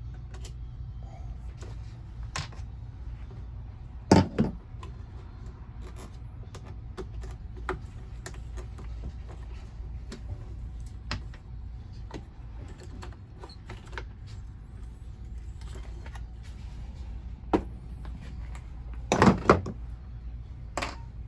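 Small parts and tools being handled while taking apart a lawn mower handle: scattered light clicks and taps, with two louder knocks, one about four seconds in and one near the end, over a steady low hum.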